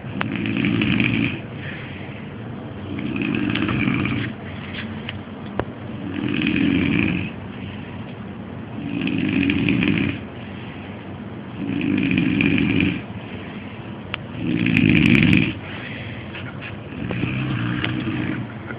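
A man snoring loudly in his sleep: one long snore about every three seconds, seven in all, with quieter breathing between them.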